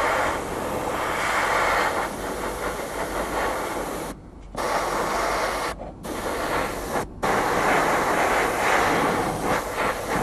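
Airbrush hissing steadily as it sprays paint onto a model part, cutting out briefly three times: once for about half a second around four seconds in, then twice more, shorter, around six and seven seconds.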